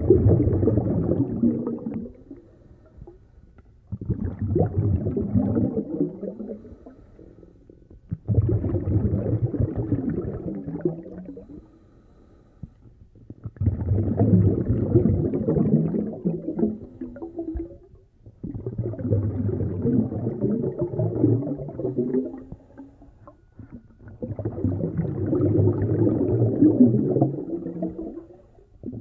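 A snorkeler breathing through a snorkel, heard through the water by the underwater camera: six muffled breaths of two to four seconds each, one about every four to five seconds, with short quiet gaps between.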